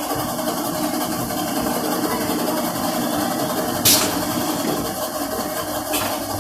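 Steady hum and whir of garment-factory machinery running, with a sharp clack about four seconds in and a lighter one near the end.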